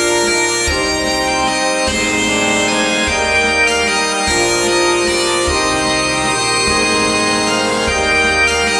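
Virtual-orchestra (sampled) bagpipes playing an ornamented melody over their drones, accompanied by a concert band whose low notes shift every second or so.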